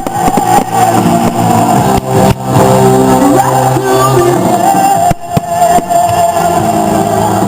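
Loud rock music with held guitar-like chords and some singing.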